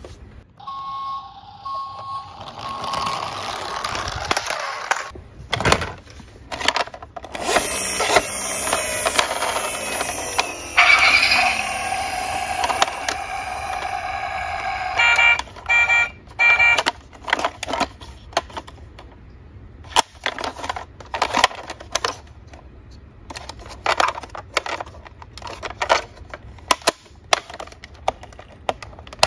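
Battery-operated toy vehicles playing their electronic sound effects: a few short beeps, a long stretch of busy recorded sounds, then quick high beeps. These are followed by a string of sharp plastic clicks and knocks as the toys are handled in a cardboard box.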